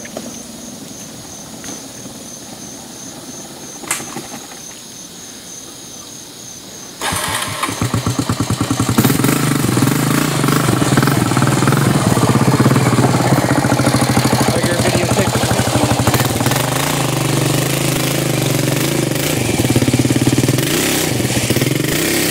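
A small outboard motor on a little boat catches abruptly about seven seconds in, then runs loud and steady with fast, even firing.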